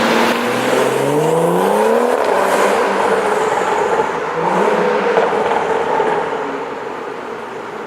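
BMW 435i's turbocharged 3.0-litre inline-six, fitted with a catless downpipe and stock mufflers, accelerating hard. The exhaust note comes in suddenly, climbs in pitch over about two seconds, holds, then fades away near the end.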